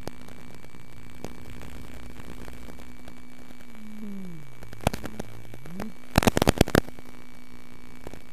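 Steady hiss and hum, the typical audio of an analog wireless video link from a model airplane's onboard camera. The hum drops to about half its pitch for a couple of seconds about four seconds in, then rises back. Bursts of loud crackling static come about five seconds in and again between six and seven seconds.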